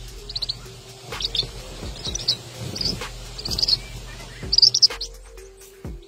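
Red-whiskered bulbul giving short bursts of high, quick chirps, about one burst a second: the distress calls of a parent bird at its nest after a snake has taken the chicks.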